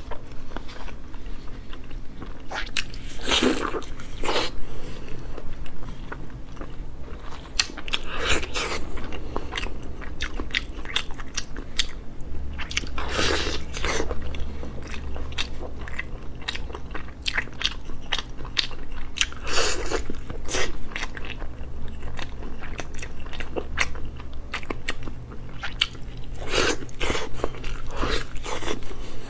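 Close-miked eating: a glazed, browned piece of meat being bitten and chewed, with many sharp crunches. A louder bite comes about every five seconds.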